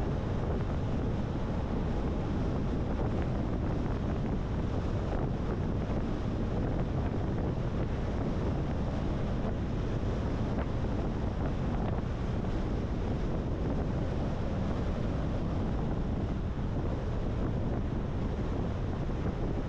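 Steady wind and road noise from a car being driven, with wind rushing over the microphone as a constant low rumble.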